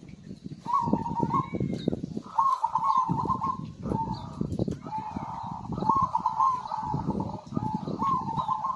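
Zebra dove (perkutut) cooing in its rapid, stuttering phrases, repeated about every one to two seconds, with faint chirps from other birds. A low crackling noise runs underneath.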